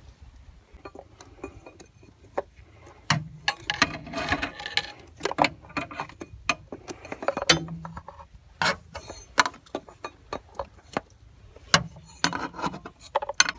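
Hand tools and metal parts clinking and knocking, with many sharp irregular clicks and a few short rattling stretches.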